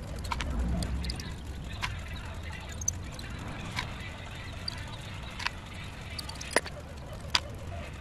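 Small sharp clicks and taps of an Allen key and steel pins against a Yoshimura BMX flat pedal as the pins are hand-threaded in, about seven irregular ticks, the last two the loudest. A low rumble in the first second or so.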